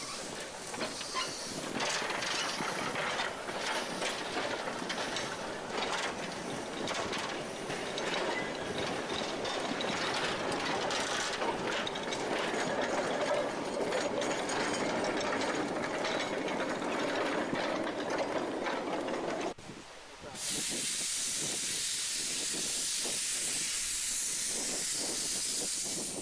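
A narrow-gauge Hunslet quarry tank engine and its train of small open goods wagons roll past with a steady rattle and clatter of wheels over the rail joints. About twenty seconds in this cuts off, and a steady hiss of steam follows from the engine's open cylinder drain cocks.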